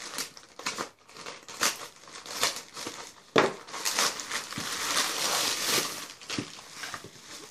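Plastic mailer bag being cut with a utility knife and torn open, and the bubble-wrapped contents pulled out: irregular plastic crinkling and rustling with sharp tearing crackles, loudest in one sharp snap about three and a half seconds in.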